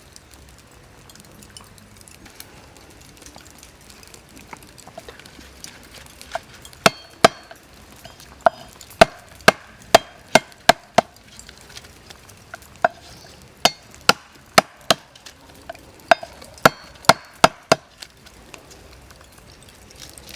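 Chopping with a blade against wood: sharp, hard strikes in two runs of about a dozen each, roughly two a second, with a short pause between.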